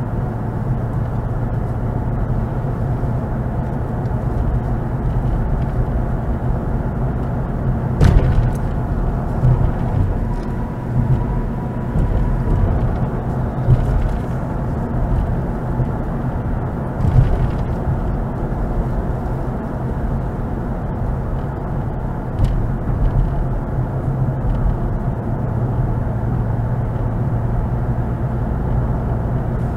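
Car driving along a city road, heard from inside the cabin: a steady low rumble of engine and tyre noise. A sharp knock comes about eight seconds in, and a few softer thumps follow.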